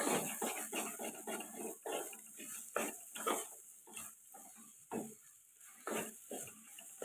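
Wooden spatula stirring and scraping spiced onions and garlic around a black cooking pot, in irregular strokes about two or three a second. The masala is being fried until the raw smell of the ground coriander and chilli goes.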